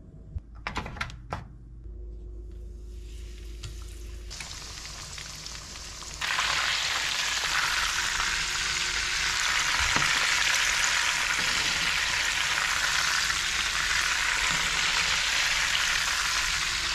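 Breaded walleye fillets frying in shallow oil in a pan, a steady sizzle that steps up to a loud sizzle about six seconds in. A few clicks near the start.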